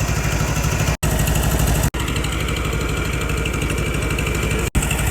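An engine running steadily with an even, pulsing low rumble. The sound drops out for an instant three times.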